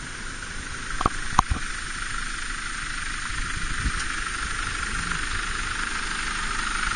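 Air hissing steadily out of a Nissan Patrol's tyres through Staun automatic tyre deflators, letting the pressure down to about 24 to 26 PSI for a rough rocky trail. The hiss grows slightly louder, with two short clicks about a second in.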